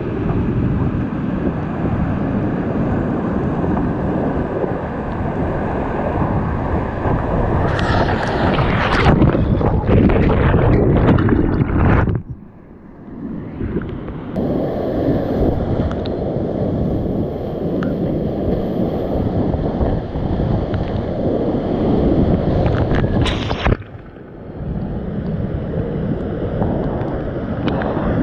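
Whitewater rapids rushing loudly around a kayak, heard through a GoPro action camera's microphone with water and wind buffeting it. The rush breaks off briefly twice, about twelve and twenty-four seconds in.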